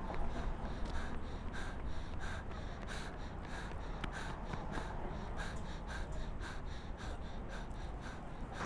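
A runner panting hard, with quick gasping breaths about twice a second, over a low steady rumble.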